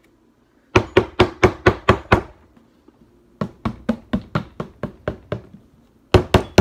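A plastic bottle of Hidden Valley Ranch dressing shaken hard upside down to get the last of the dressing out, making rapid knocks about four or five a second in three runs: a loud run about a second in, a softer run in the middle and a loud run near the end.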